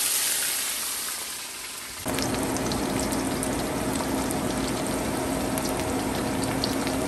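Dried anchovies dropped into very hot oil in a wok: a loud hiss that fades over about two seconds. About two seconds in, it gives way to a steady sizzle with many small crackles as the fish fry, over a faint low steady hum.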